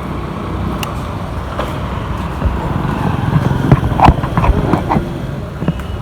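Motor vehicle noise at a roadside tyre shop, a steady low rumble, with scattered knocks and clatter that grow busier about four seconds in.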